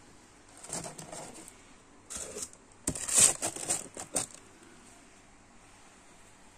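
Paper wrapping crinkling and rustling in several short bursts as it is pulled off a leather bicycle saddle by hand, loudest about three seconds in.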